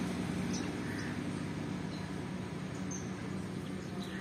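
Steady low engine hum from nearby traffic, slowly fading, with a few faint short bird chirps.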